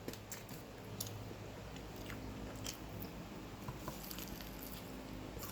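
A person chewing a mouthful of sandwich close to the microphone, with soft crunches and small wet mouth clicks scattered throughout.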